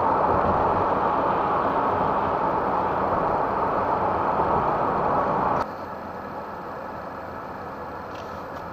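Steady road and engine noise of a camper driving at highway speed, heard from inside the cab. The noise drops suddenly and stays quieter a little over halfway through.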